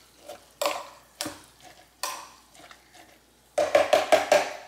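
Metal spoon scraping and knocking against the inside of a plastic blender jar while minced garlic is spooned onto riced cauliflower: a few separate knocks, then a quick run of louder taps near the end.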